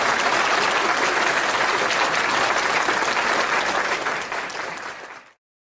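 Audience applauding with steady clapping that fades over the last second or so and cuts off about five seconds in.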